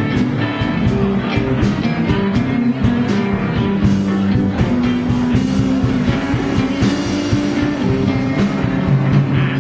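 Live blues band playing with electric guitars, bass, keyboards and a drum kit keeping a steady beat, with no singing.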